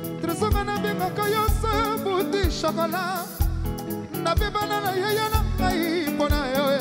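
Music: a song with a lead singer holding wavering, vibrato-laden notes over a band with a steady, pulsing bass.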